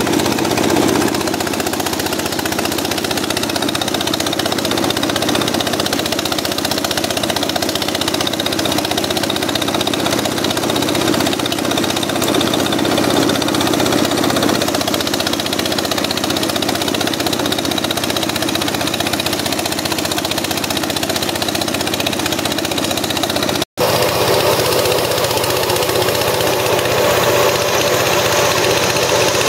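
Small single-cylinder diesel engine running steadily under load, driving a rice thresher as rice stalks are fed into the drum. The sound drops out for an instant about three-quarters of the way through.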